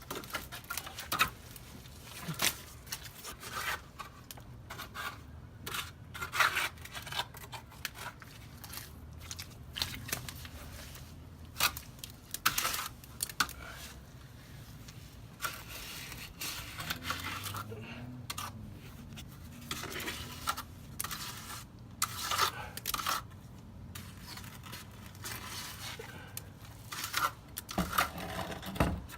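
Irregular scraping strokes of a hand tool working wet concrete, scraping up the last of it, with scattered clicks and knocks.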